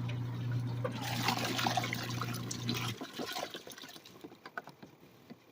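Costway twin tub washing machine agitating a load: a steady motor hum with water sloshing in the wash tub. About three seconds in, the motor stops and only faint water dribbling is left.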